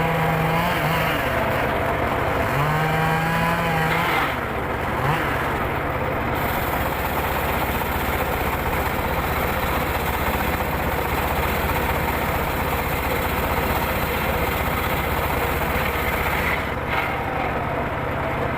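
Engine-driven mobile circular saw running while sawing logs, a steady machine noise whose pitch shifts twice in the first few seconds before settling.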